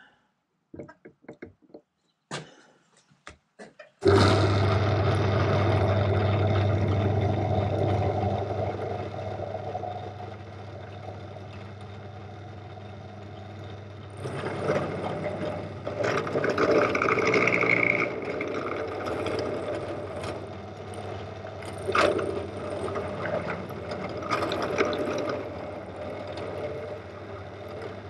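Pillar drill switched on about four seconds in, its motor running with a steady hum. From about halfway, a spiral-fluted cutter in the drill chuck grinds into a metal shaft held in a vise, milling a Woodruff key slot, with a sharp knock a little over three-quarters through.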